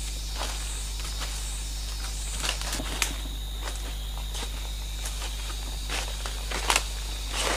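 Bare feet walking over dry leaf litter: irregular crunches and rustles of dead leaves, with a sharper crunch about three seconds in and a pair of louder ones near the end.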